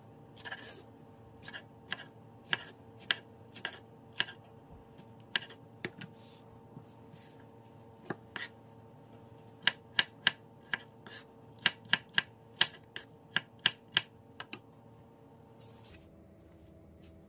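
Chef's knife slicing a green chili into rings on a bamboo cutting board: sharp knocks of the blade meeting the board, spaced out at first, then a quicker run of about two a second in the second half, stopping a couple of seconds before the end. A faint steady hum lies underneath.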